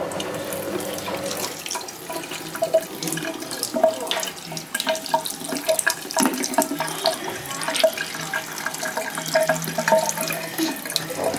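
Water running from a tap into a sink, with irregular splashing as small hands are washed under the stream.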